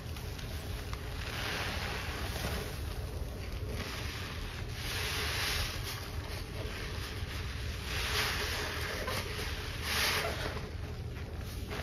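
Sponge squeezed and kneaded by gloved hands in a basin of thick detergent suds: wet squelching and foam crackle in repeated swells every couple of seconds.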